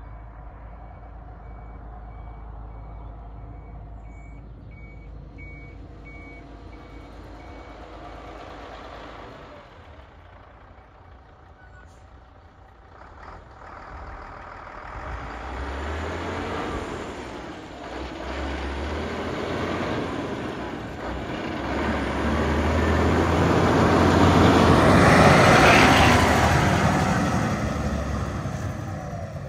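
1999 Scania 94 260 diesel truck approaching at low speed, its engine and tyres growing louder until it passes close by about 26 seconds in, then fading as it pulls away. For the first several seconds a reversing alarm beeps steadily over a low engine rumble.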